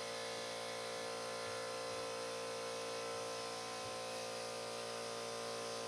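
A steady hum made of several held tones, even throughout, with no knocks or clicks.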